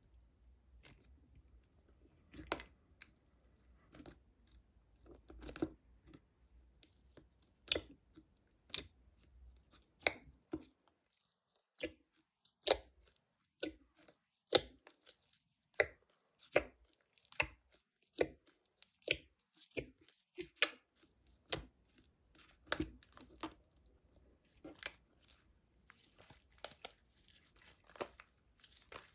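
Thick textured slime being squeezed and pressed by hand, giving a string of sharp pops and crackles, about one or two a second at an uneven pace.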